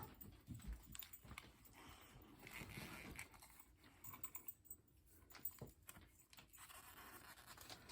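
Near silence with faint scattered clicks and soft rustling: a puppy mouthing and playing with a plush toy.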